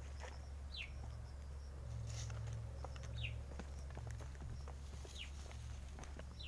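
Faint footsteps on a dirt trail, with a bird repeating a short falling call four times, about every two seconds, over a steady low hum.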